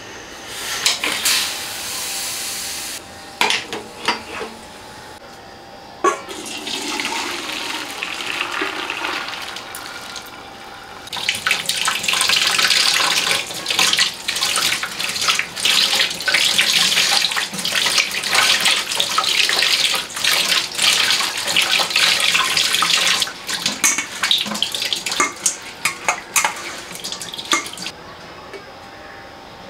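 Tap water running and splashing over boiled noodles being rinsed by hand in a stainless steel colander, for about twelve seconds in the middle, then scattered drips and splashes as the water drains. Shorter bursts of water and bubbling come earlier, and it is quiet near the end.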